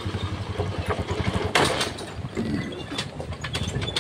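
Small motorcycle engine running at low road speed, heard from the rider's position, with a fast low pulsing; a short rush of noise about one and a half seconds in is the loudest moment.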